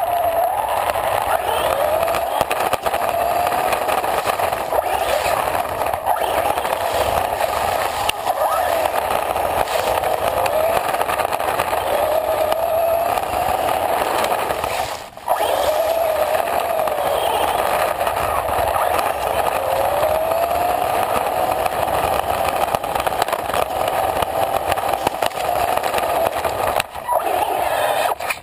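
RC car driving over rough asphalt with a camera on board: a steady rolling rumble from the wheels under a motor whine that rises and falls in pitch with the throttle. The sound dips briefly about halfway through.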